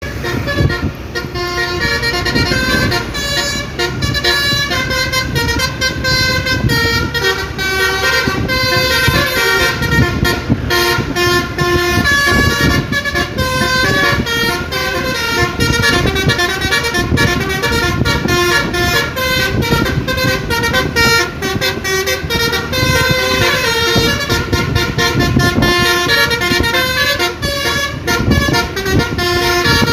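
Tour bus telolet horn playing a melody of stepped, changing tones, with the bus's engine running low beneath it.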